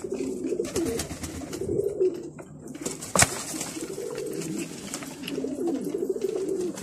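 Domestic pigeons cooing in a loft, phrase after phrase overlapping throughout. A single sharp click about three seconds in.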